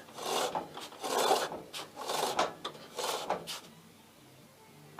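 Rear wheel of a Suzuki GSX-R600 spun by hand, turning the drive chain over the sprockets in four short rasping bursts about a second apart. It is a brake check: the freshly re-padded rear brake, its seized pedal freed, no longer drags.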